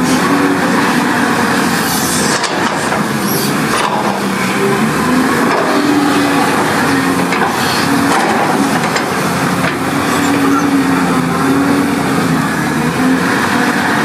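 Diesel engine of heavy earthmoving machinery running steadily under load, its pitch wavering, with a few sharp clanks.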